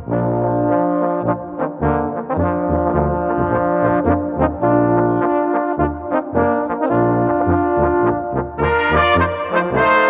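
Small Bohemian-style brass band playing a polka: low bass notes on an even beat under the horns and trombones. The band gets fuller and brighter about three-quarters of the way through.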